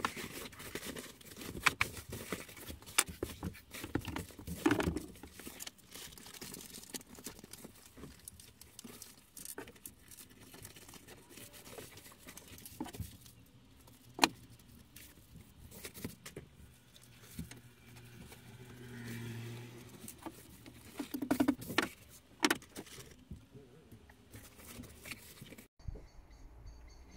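Rustling and crinkling of a reflective foil bubble-insulation sheet being handled and fitted against a van's side window, with scattered sharp clicks and taps.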